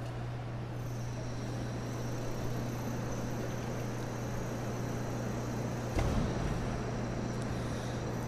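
Steady background hum and hiss with no speech, and a faint high whine that comes in about a second in. There is a single soft knock about six seconds in.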